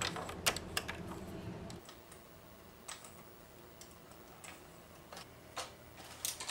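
Circular knitting machine being worked by hand, giving sharp irregular clicks: several close together in the first second, then a few scattered single clicks. A low steady hum fades out about two seconds in.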